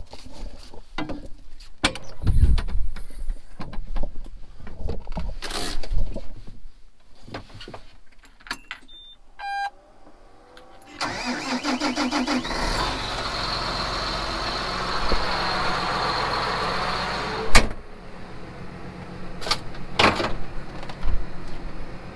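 John Deere tractor's diesel engine cranked over by the starter about halfway through, catching after a second or so and settling into a steady idle. Before it, knocks and clicks from climbing into the cab and a short electronic beep as the key is turned; near the end a sharp knock, after which the engine is quieter.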